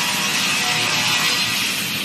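Multi-blade rip saw running through wood, a loud steady hissing saw noise without a break.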